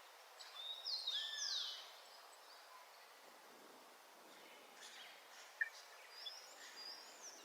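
Birds calling faintly: a few slurred, falling whistled notes about a second in, then a lull, then a few short chirps near the end.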